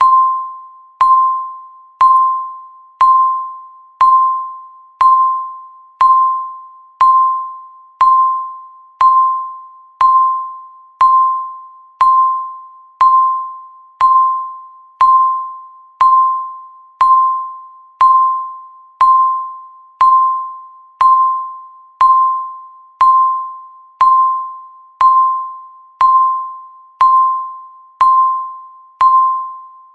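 Countdown timer beeping once every second: a single-pitched, bell-like beep that starts sharply and fades away before the next, in an even, unchanging rhythm.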